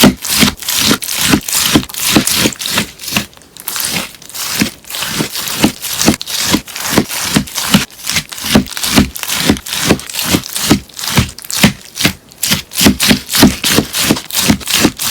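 Melamine sponge slime being cut over and over in quick, even strokes, about three a second, each a crisp crunchy crackle with a dull thud underneath.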